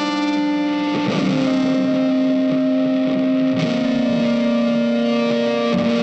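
Background music: long held notes with many overtones, moving to a new note or chord about every two to three seconds.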